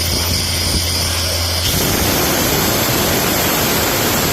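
Airman PDS90S portable air compressor's Isuzu three-cylinder diesel running steadily with a high whine. About one and a half seconds in, a loud, even rush of compressed air blowing out through the opened air valve joins it and holds.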